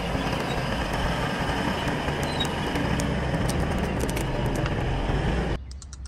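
Komatsu D155A crawler bulldozer on the move: its diesel engine running steadily under the clank and clatter of its steel tracks. The sound cuts off suddenly near the end.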